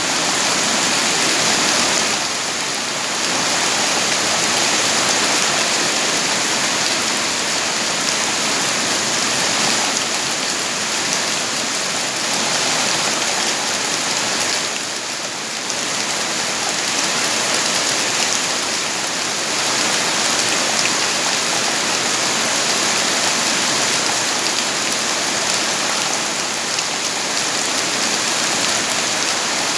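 Steady, heavy rainfall: a dense, even hiss of rain falling on surfaces.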